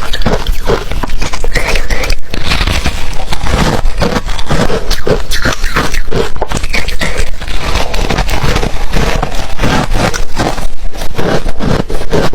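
Ice being bitten and chewed: dense, continuous crunching and crackling made of many rapid short strokes.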